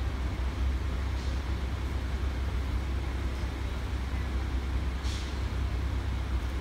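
Steady low rumble of idling trucks and road traffic, with a brief hiss about five seconds in.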